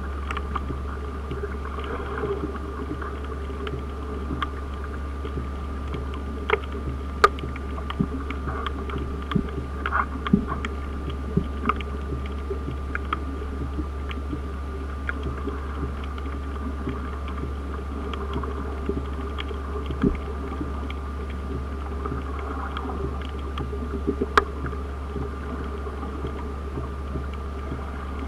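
Underwater ambience heard through an underwater camera: a steady low hum with scattered sharp clicks and ticks.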